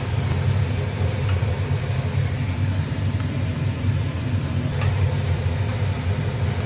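A steady low hum runs throughout. Over it come a few faint clicks, about a second, three seconds and five seconds in, from a metal spatula against the kadai and plate as the curry is scooped out.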